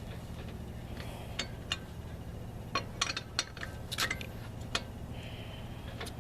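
Lug wrench clinking against a wheel's lug nut as the nut is tightened: a run of short, sharp metallic clicks over a few seconds, over a steady low hum.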